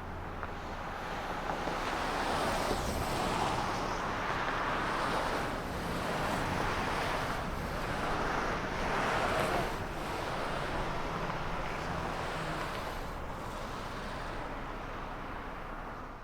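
Road traffic: cars passing by one after another, tyre and engine noise swelling and easing as each goes past.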